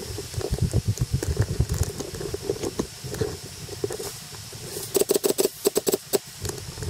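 Airsoft gunfire: a quick burst of sharp cracks about five seconds in, after a run of low thuds and scattered knocks from movement and gear.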